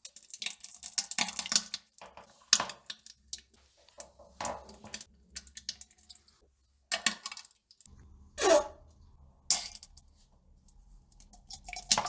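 Stool dropping into toilet-bowl water: several sharp plops and splashes at irregular intervals. The loudest splashes come about eight and a half and nine and a half seconds in, the first with a short hollow bloop.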